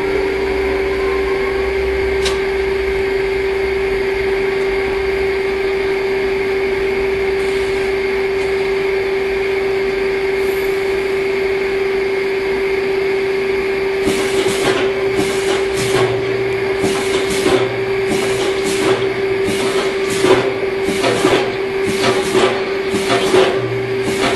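Friction screw press for forging running under test: a steady machine hum throughout, and from about halfway through, a regular series of metallic knocks, about two a second, as the press cycles.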